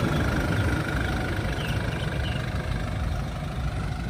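Isuzu D-Max pickup's engine idling: a steady low rumble.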